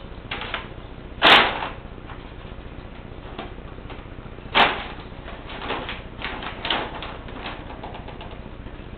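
Brown paper grocery bag crinkling and rustling in short bursts as a cat pushes its way into it. The loudest rustle comes about a second in, another sharp one a little past the middle, then a run of smaller crinkles.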